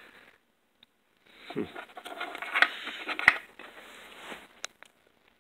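Scraping and rattling as the plastic parts of an electronic bathroom scale are worked at to free the load cell, with a few sharp clicks.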